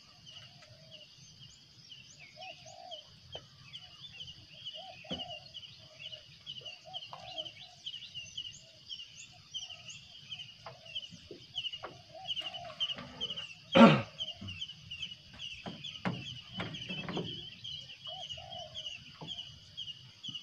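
Outdoor chorus of birds and insects: a steady high buzz with rapid repeated chirps, and short lower calls every second or so. A single loud knock about fourteen seconds in, followed by a few softer knocks.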